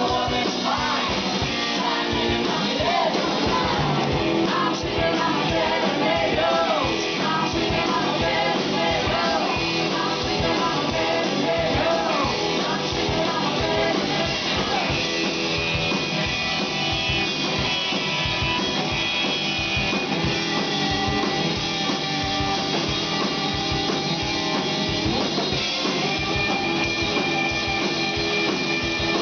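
Live rock band playing: electric guitar and drum kit, with women's voices singing over it.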